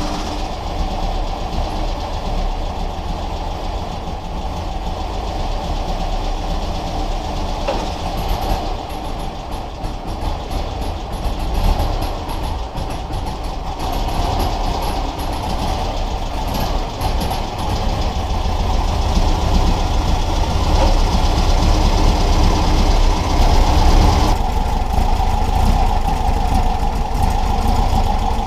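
An engine idling steadily, getting a little louder after about twenty seconds.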